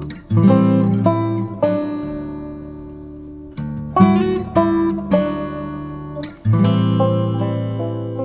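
Background music: acoustic guitar chords struck every second or two and left to ring out.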